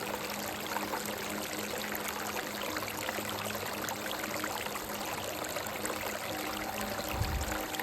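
A rocky creek running steadily, its water splashing and gurgling over stones. Faint, soft sustained music notes sit underneath it, a higher note joins near the end, and there is a brief low rumble about seven seconds in.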